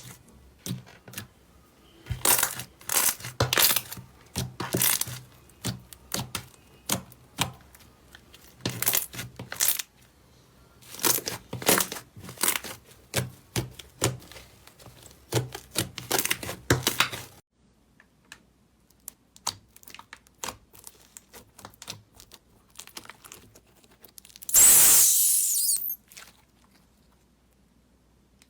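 Slime being squeezed and pressed by hand, crackling and popping in quick runs of small clicks, then a short, loud hiss about 25 seconds in.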